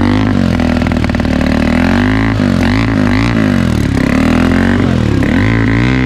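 Hero Xpulse 200's single-cylinder engine running and being revved again and again, its pitch rising and falling several times. It has just been brought back to running after water got into the engine, and is on used engine oil.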